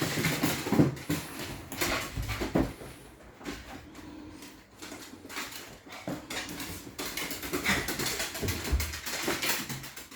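Dogs moving about with many quick clicks and taps, and a few short dog sounds.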